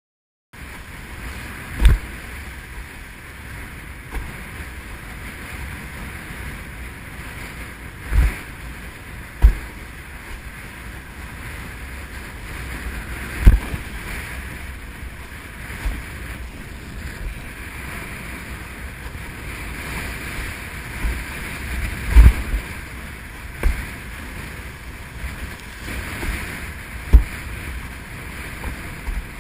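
Wind and water rushing past a windsurfing board and rig sailing fast through choppy sea, heard close-up with wind noise on the microphone. Sharp low thumps stand out every few seconds.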